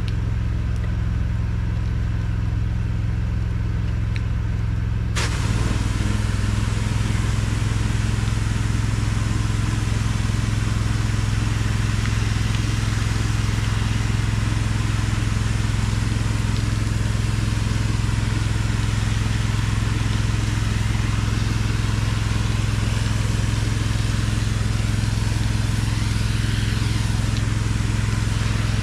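Gas engine of a pressure-washing rig running steadily. About five seconds in, a loud steady spray hiss starts suddenly and the engine takes on load.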